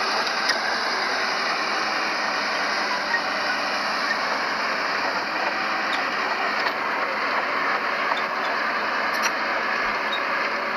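Heavy earthmoving machinery running steadily, a dense engine and mechanical din with a few faint clicks.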